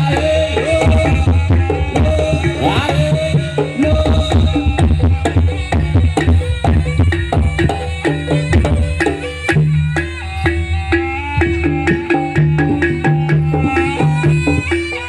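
Live Javanese gamelan music for a jaranan-style dance, led by rapid hand-drum strokes over sustained low gong tones, with a short melodic figure repeating above them.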